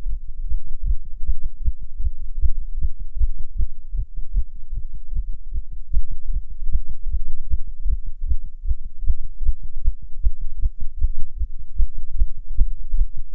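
A human heartbeat heard close up as rapid, evenly spaced low thuds: a raised heart rate under the effect of nicotine from cigarette smoking.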